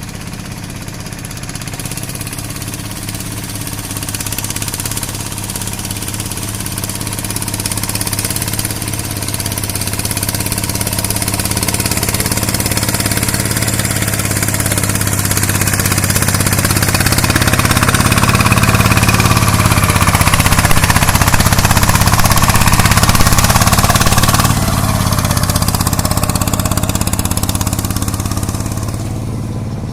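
Engine of a farm machine running steadily with a low, even note, growing louder for most of the time as it comes closer, then easing off a little near the end.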